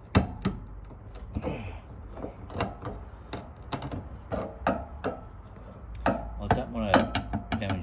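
Irregular metal clicks, taps and scrapes of a screwdriver working at a car's wiper arm to prise it off its spindle, with a brief mutter near the end.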